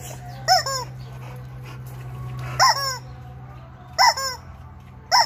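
Squeaky rubber chicken toy squawking four times, each squawk a rising-and-falling note followed by a shorter second note, one to two seconds apart.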